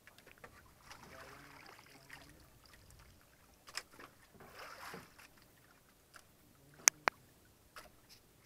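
Sea water splashing and lapping against the hull of a small outrigger fishing boat, in soft swells. Two sharp knocks close together about seven seconds in.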